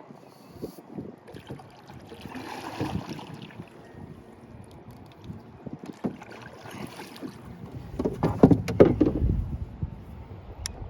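Wind buffeting the microphone and water sloshing against a small fishing boat, swelling into a louder rush with a few sharp knocks about eight seconds in.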